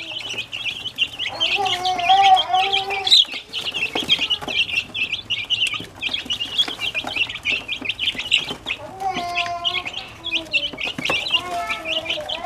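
A brood of about twelve baby chicks peeping rapidly and constantly as they eat at a feeder. A high voice sounds briefly three times: about a second in, around nine seconds in, and near the end.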